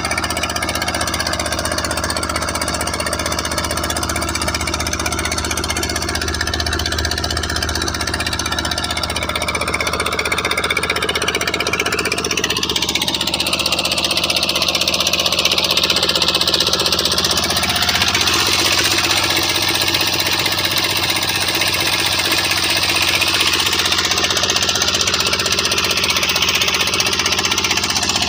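A small fishing boat's inboard engine running steadily while the boat is under way. About twelve seconds in, a louder rushing hiss joins it.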